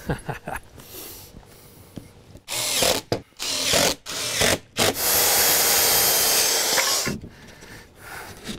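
Cordless impact driver driving screws into wooden boards: two short bursts, then a longer run of about two seconds as a screw is driven home.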